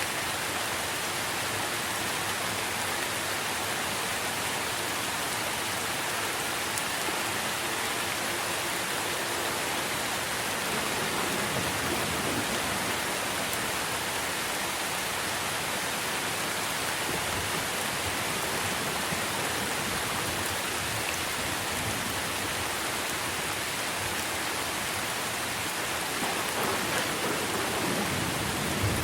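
Steady heavy rain falling on trees and foliage: a dense, even hiss of countless drops, with a slight low swell near the end.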